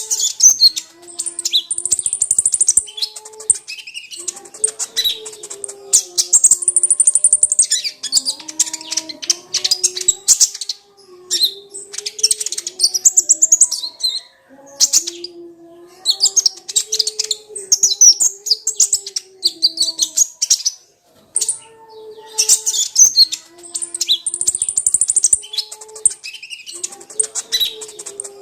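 Kolibri ninja (a sunbird) singing rapid, high twittering phrases in repeated bursts, the lure song used to provoke a kept bird into singing. Under it runs a low, stepping melodic tone.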